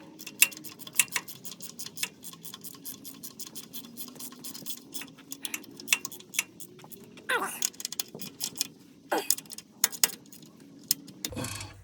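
Ratchet wrench clicking in quick runs of ticks as mounting bolts are tightened, with a few longer rasping strokes.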